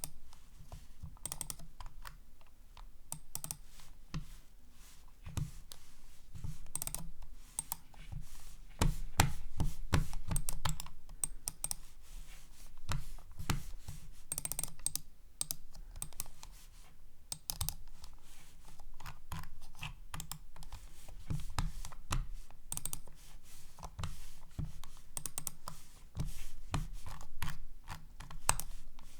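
Logitech B100 wired mouse being clicked: many quick plastic clicks in irregular runs, some close together in rapid bursts.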